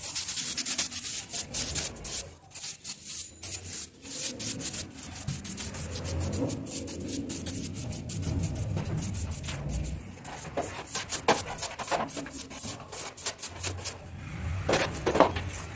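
Cleaning and handling sounds: something rubbed and scrubbed against a surface, with many small clicks and knocks.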